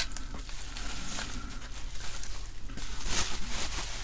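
Plastic bubble wrap crinkling and rustling as a circuit board is unwrapped from it, with the loudest crackle about three seconds in.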